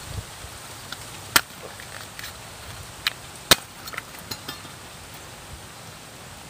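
Machete blade cutting into and prying apart the layers of a coconut palm heart: a few sharp cracks, the loudest about a second and a half in and again about three and a half seconds in, with lighter clicks and snaps between.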